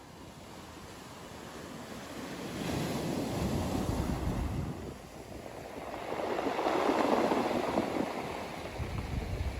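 Ocean waves breaking and washing up a sandy beach: two swells of surf, the second louder than the first past the middle.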